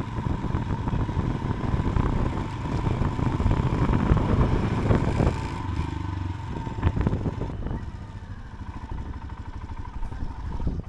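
Royal Enfield motorcycle engine running on the move, with a dense low rumble that eases off noticeably about seven and a half seconds in.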